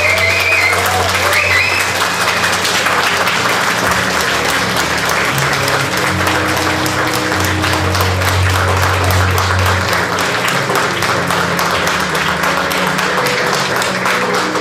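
A crowd applauding steadily, with music playing underneath.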